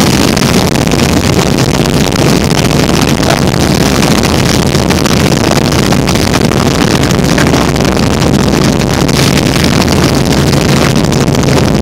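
Helicopter engine and rotor running steadily, heard from on board as a loud, constant drone with a low hum and a wash of noise.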